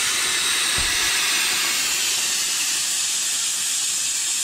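Plasma cutter hissing steadily as its arc and air jet cut through 3/8-inch steel bar, a thickness the owners think is at or past the edge of the cutter's capacity.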